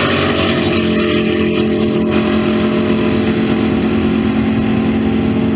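Two V8 drag cars at full throttle, accelerating side by side down the strip, with a loud, steady engine note that loses its treble about two seconds in as they pull away.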